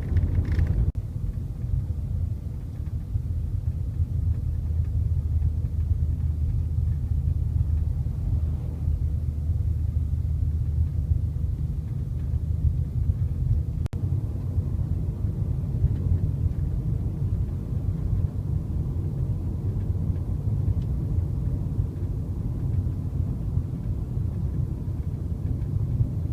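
Steady low rumble of a vehicle driving along a road.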